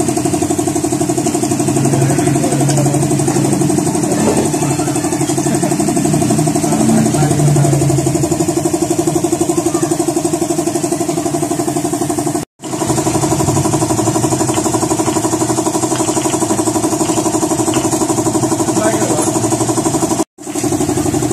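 Steady running hum of an engine or motor at constant speed, with a fine regular pulse. It cuts out abruptly twice, about twelve seconds in and near the end.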